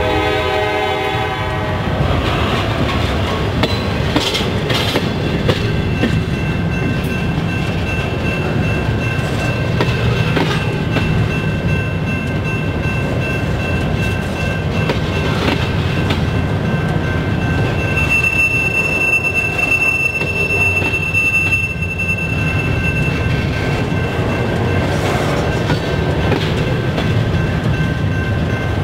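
Double-stack intermodal freight train's container well cars rolling past with a steady heavy rumble and wheels clicking over the rail joints. A train horn fades out in the first couple of seconds, and a high thin wheel squeal sounds through much of it, loudest about two-thirds of the way in.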